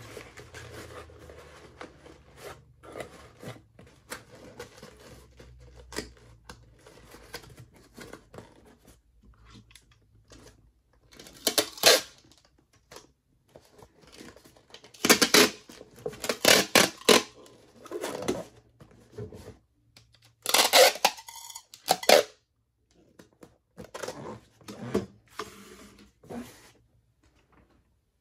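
Cardboard box flaps rustling as they are folded shut, then a handheld packing-tape dispenser sealing the box: several loud rasping strips of tape pulled off the roll and snapped off against the dispenser's cutter.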